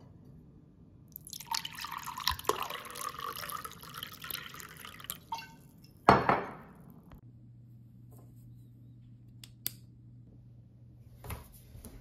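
Water poured into a glass tumbler for about four seconds, then a single loud knock about six seconds in, followed by a few faint clicks.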